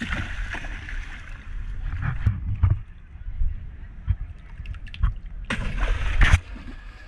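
Water splashing as large fish strike at a bait fish held by hand at the surface: a splash at the start, a few shorter splashes two to three seconds in, and the loudest, longest splash about five and a half seconds in.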